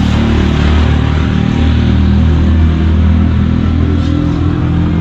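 Steady, loud low drone of an engine running, with no change in pitch.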